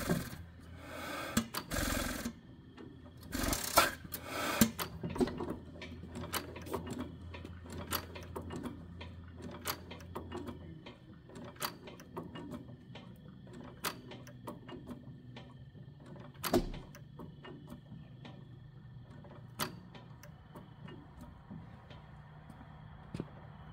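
12 HP Witte hit-and-miss engine spun over by its flywheels, with two loud bursts in the first few seconds, then coasting down with sharp mechanical clicks that come further and further apart. It is not firing: the governor detent is holding the exhaust valve open.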